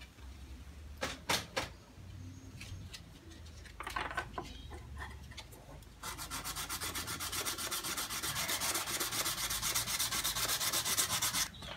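A small maripa palm shell piece being rubbed by hand in quick, even strokes, about seven a second, starting about halfway through. Before that, a few light clicks and knocks of the shell being handled.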